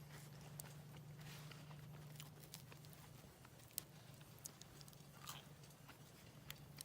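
Campfire crackling: scattered sharp pops and snaps, the loudest just under four seconds in, over a faint steady low hum.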